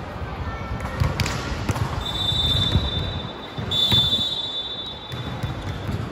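Volleyball referee's whistle blown in two long blasts, the first about two seconds in and the second straight after it, with a sharp thud of a ball hit about a second in and a background of players' and spectators' voices.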